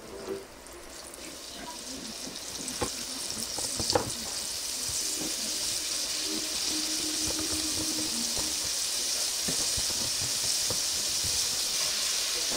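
Breaded pigeon breast chunks frying in hot vegetable oil in a skillet, the sizzle growing steadily louder as more pieces go into the pan. A couple of sharp taps about three and four seconds in.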